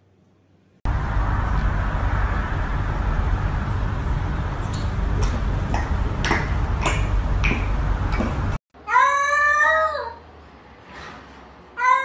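About a second in, a loud, steady rushing noise with a few clicks starts and runs for some eight seconds, then cuts off. After it, a domestic cat gives one drawn-out meow that drops in pitch at its end, and starts a shorter call near the end.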